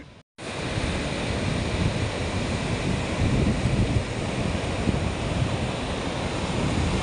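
Surf breaking on the beach with wind buffeting the microphone, a steady rushing noise with a heavy low rumble that starts suddenly after a brief silence.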